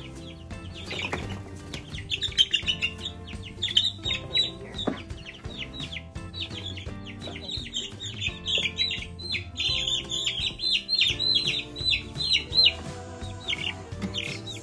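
Baby chicks peeping rapidly, a dense run of short falling chirps, over background music with held notes.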